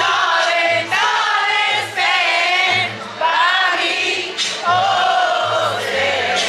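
Background music: a song with sung vocals over a steady bass beat.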